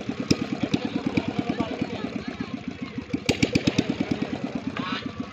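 A small engine running with a rapid, even beat, fading a little near the end.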